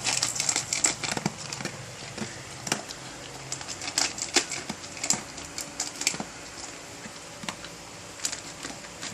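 German Shepherd eating from its food, a run of irregular crunches and clicks, thickest near the start and again around the middle.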